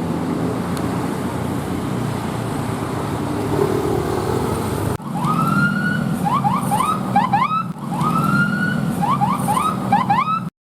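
Bus engine running with road noise; then, about five seconds in, a telolet multi-tone bus horn plays its tune twice. Each time one note slides up and holds, then comes a quick run of short rising chirps. The sound cuts off suddenly near the end.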